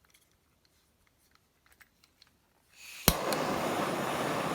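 Faint small clicks of metal tools being handled. About three seconds in comes a short rising hiss of gas, then a sharp click as a jeweller's soldering torch lights, and the torch flame runs on with a steady rushing noise, heating the silver ring band for soldering.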